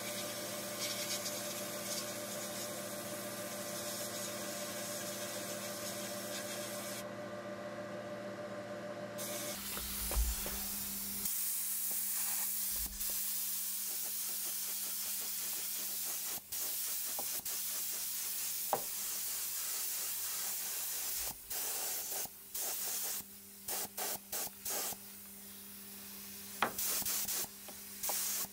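Sandblasting gun hissing inside a blast cabinet over a steady machine hum. About ten seconds in this gives way to a gravity-feed paint spray gun hissing as it sprays the wheel, stopping and starting in short bursts near the end.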